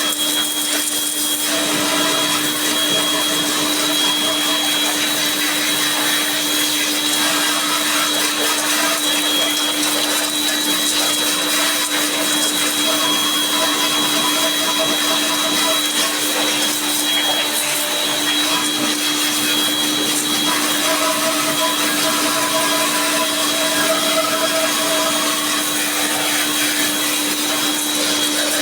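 A cleaning machine's motor running steadily, with a constant hum, a high whine and a rushing hiss.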